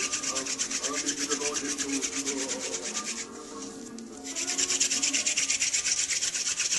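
Hand drill fire-making: a sassafras spindle spun back and forth between the palms, grinding into a trumpet creeper hearth board. It makes a fast, even rasping rub that stops for about a second near the middle, then starts again.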